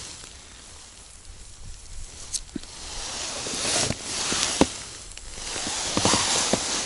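Winter clothing and gloves rustling against snow as the hands move about, with a few sharp light clicks and taps of handled gear, around two and a half, four and a half and six seconds in.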